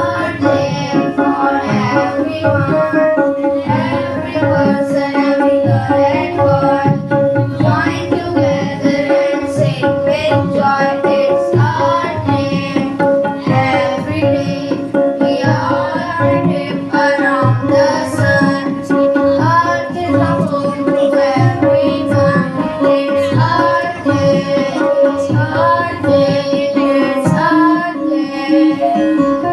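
Indian classical-style music: tabla playing a steady rhythm under a held drone note, with a wavering, ornamented melody line above.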